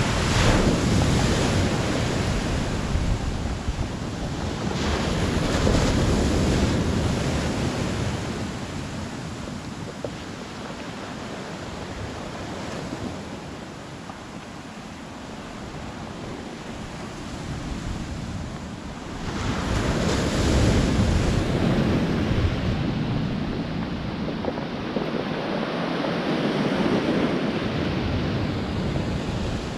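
Small waves breaking and washing up a pebble beach, swelling loud and easing off again, with a quieter lull partway through. Wind rumbles on the microphone.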